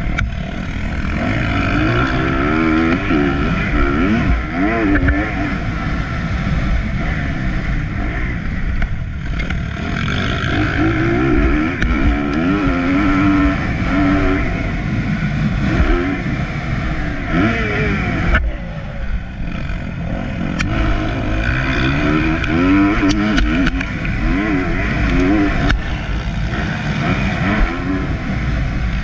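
Motocross bike engine heard from a camera on the bike, revving up and falling back again and again as the rider throttles through the corners and straights, over a heavy low rumble. The revs drop briefly about two-thirds of the way through.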